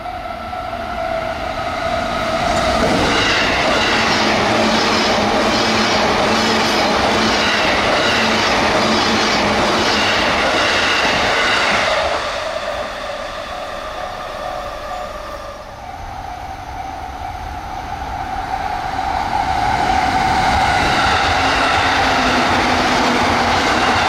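JR East electric trains running past at speed on straight track: one train is loud from about three seconds in until about twelve seconds in, with a steady hum over the wheel and rail noise, and after a quieter gap a second train builds up from about sixteen seconds in.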